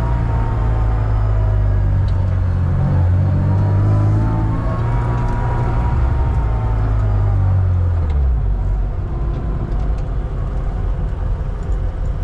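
BMW 325 Cup race car's engine heard from inside the cabin, running at low, fairly steady revs with a loud low drone, then easing off about eight seconds in.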